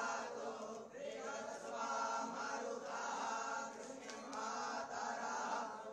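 Quiet chanting of Hindu mantras by a group of voices in unison, in phrases about a second long.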